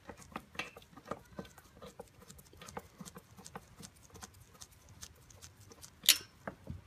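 Screwdriver turning out a crosshead screw that retains the buggy's drive belt cover: a run of small, irregular metal clicks and scrapes, with one sharper click about six seconds in.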